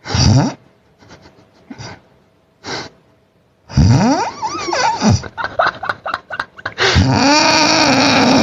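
A person snoring loudly and irregularly: a short snort at the start, two faint snorts, then a wavering snore with gliding pitch a little before halfway and a long drawn-out snore near the end.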